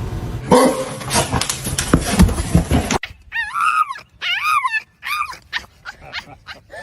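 A rough rustling clatter with a few knocks, which cuts off about three seconds in. A dog then whines and yips in a quick run of short, high cries, each rising and falling in pitch.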